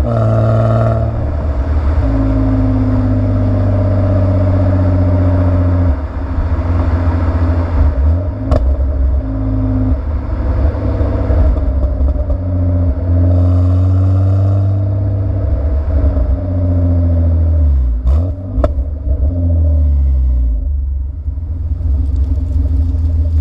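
BMW M50B25 straight-six of an E36 325i running warm, heard through its stock exhaust with an old, worn rear muffler. The engine note rises and falls several times, with sudden drops about a quarter of the way in and again past three quarters, and a few sharp clicks.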